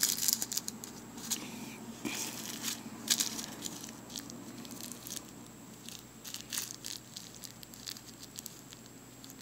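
Small plastic Ziploc baggies of diamond painting drills crinkling and rustling as they are handled, in short irregular bursts.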